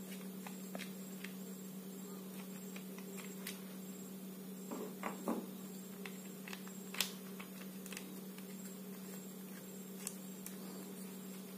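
Faint plastic clicks and scrapes of a screwdriver unscrewing a wheel screw on a plastic take-apart toy construction truck. A sharper click comes just past halfway.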